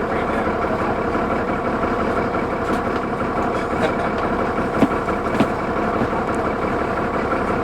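Cummins ISL diesel engine of a 2004 New Flyer D40LF transit bus running steadily, with two brief knocks about five seconds in.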